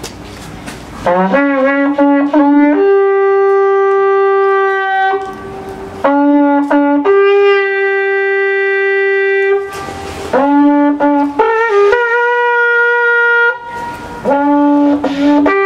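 Wooden shepherd's horn blown in a series of four calls, each opening on a brief lower note and leaping up to a long held higher note, with audible breaths between the calls.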